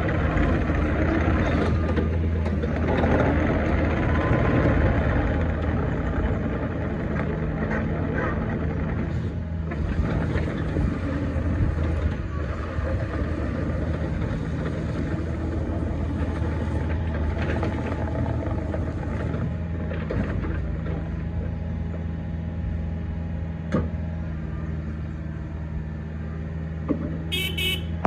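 Diesel engine of a 2019 Takeuchi TB250 5-tonne mini excavator running at a steady speed, with occasional clicks and knocks. A short run of high beeps sounds near the end.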